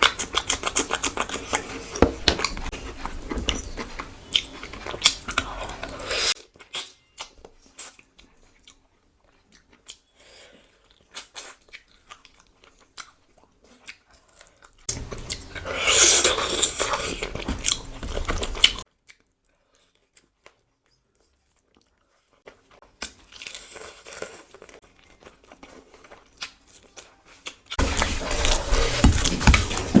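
Close-miked chewing and crunching of food, in bursts of loud wet clicks and crunches separated by quieter pauses.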